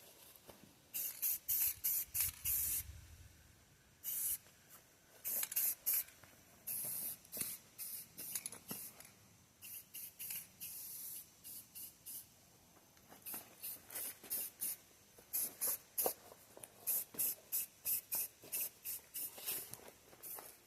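Aerosol spray paint can (Rust-Oleum Painter's Touch paint and primer) spraying in repeated hissing bursts, a few held for about a second and many short quick ones in the second half.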